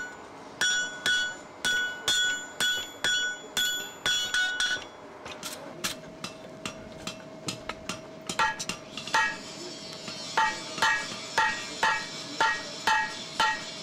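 Sledgehammer and hand-hammer blows on hot steel over an anvil, about two ringing blows a second. Around five seconds in comes a run of lighter, quicker taps. Then even sledge blows resume with a lower ring as the bar is upset in a swage block.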